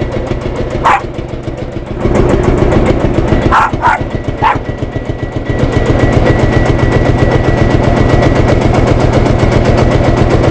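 Field Marshall Series 3 tractor's single-cylinder two-stroke diesel engine running with a steady, rapid pounding beat. It eases off briefly twice, then runs on louder and steady; a few short sharp sounds come about one and four seconds in.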